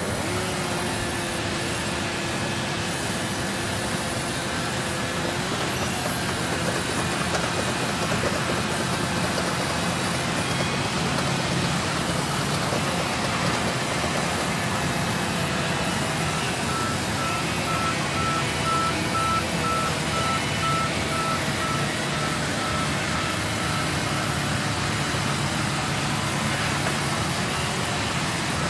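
Sawmill saw running and cutting through timber as logs and slabs are pushed through it: a steady, dense machine noise with a few steady hum tones under it. A rapid, even beeping sounds for several seconds midway.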